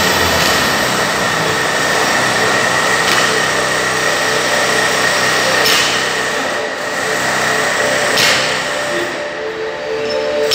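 Barbell with bumper plates dropped to the floor after each snatch, landing about every two and a half seconds, over a steady loud noise with a faint high whine.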